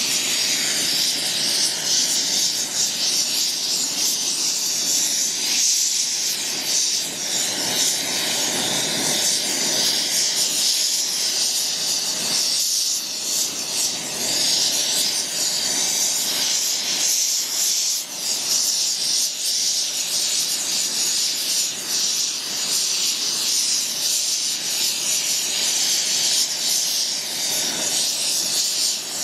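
Steady hiss of a gas brazing torch flame playing on heavy-wall copper pipe during a braze repair.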